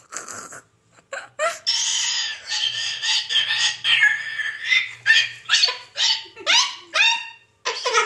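Sulphur-crested cockatoo screeching: a few short squawks, then a long harsh screech, then a run of short rising-and-falling squawks about two a second near the end.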